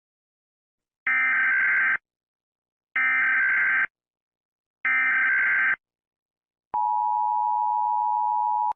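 Emergency Alert System signal: three short bursts of screechy data tones (the SAME header), each about a second long and evenly spaced. These are followed by about two seconds of the steady two-tone EAS attention signal.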